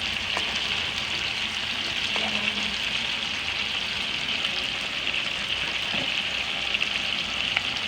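Chicken cooking in a pan with tomato sauce, a steady sizzling hiss with a few faint ticks.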